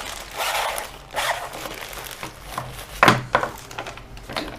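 Handling of a drone charger and its packaging: short bursts of rustling with a few sharp clicks and knocks, the loudest a little past halfway.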